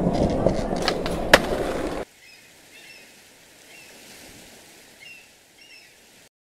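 Skateboard rolling on a hard floor, with a sharp clack about a second in; it cuts off abruptly after about two seconds, leaving faint hiss with a few soft, short chirps.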